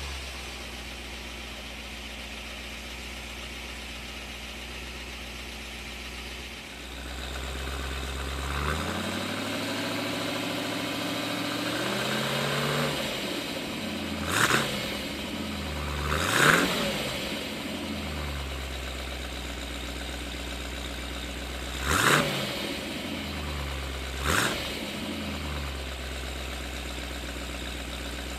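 1967 Shelby GT350's Paxton-supercharged 289 V8 idling just after a start. About a third of the way in the revs rise slowly and fall back, then the engine takes four sharp throttle blips, each dropping back to idle.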